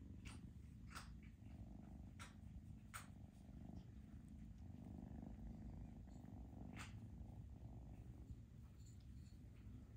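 Kitten purring faintly and steadily while being petted, with five sharp clicks scattered through it.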